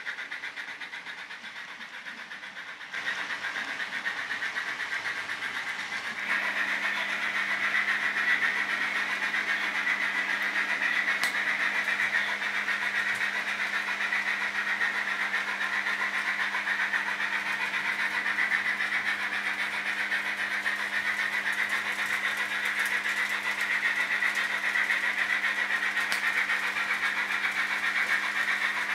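HO scale model trains running on the layout: a steady whirring hiss from their small electric motors and wheels on the rails, with faint fine ticking. It gets louder about three seconds in, and a steady low hum joins about six seconds in.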